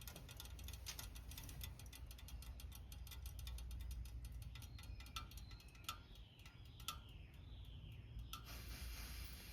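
1984 Coleman 400A gasoline stove burning, a faint steady low rumble overlaid with many light ticks. A few sharper clicks come in the second half.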